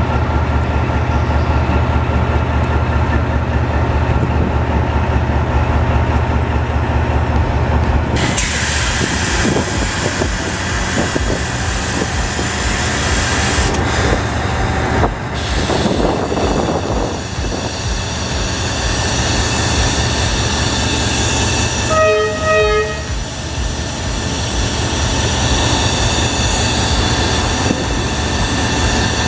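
Vietnam Railways D19E diesel-electric locomotive running slowly close by, its engine a deep steady drone, with wheel and rail noise growing about eight seconds in. About two-thirds of the way through, the horn gives two short toots.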